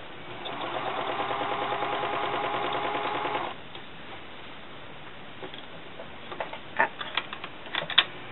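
Overlock serger stitching in a fast, even run for about three seconds, then stopping abruptly. A few sharp clicks and knocks follow near the end, the loudest just before it ends.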